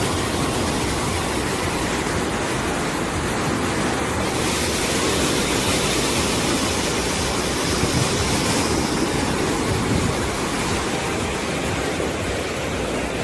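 Water rushing at high pressure under a barrage's sluice gate and churning in the channel below: a loud, steady rush.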